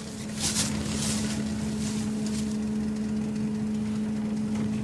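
A truck engine running steadily with an even hum. A couple of brief scraping or hissing noises come within the first second or so.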